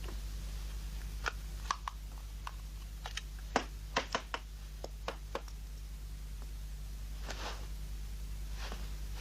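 Small sharp clicks and taps of a telephone and tools being handled, about a dozen over four seconds, then two brief rustling swishes, over a steady low mains hum.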